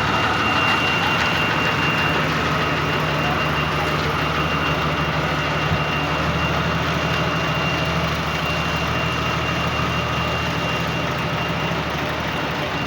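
Heavy vehicle engine running steadily, with a faint steady high whine over it.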